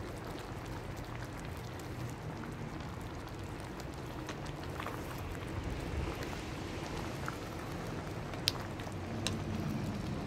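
Beef short ribs bubbling and sizzling steadily in a thick tomato sauce in an enamelled pot as a wooden spoon stirs them, with a few light clicks of the spoon against the pot near the end.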